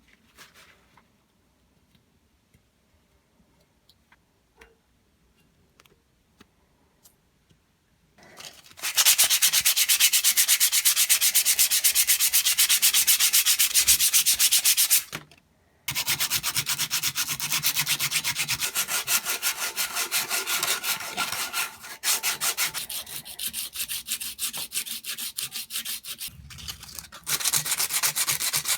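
Sanding in quick rapid strokes, starting about eight seconds in after a quiet stretch with a few light ticks. There is a brief pause around the middle, a quieter spell, then loud again near the end.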